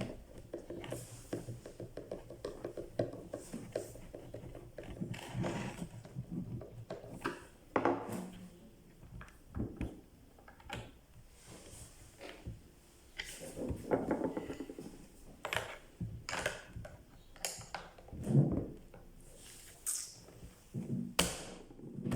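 Scattered clicks, knocks and light thunks of objects being handled, a few sharp strikes louder than the rest.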